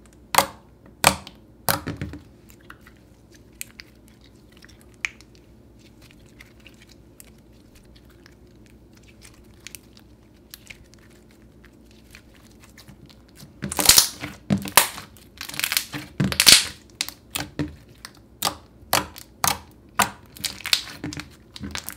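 Thick white slime being squished, stretched and poked by hand. A few sharp sticky clicks come first, then a long quiet spell with only faint ticks while it is pulled out, then a fast run of loud clicking pops over the last eight seconds as fingers press into it.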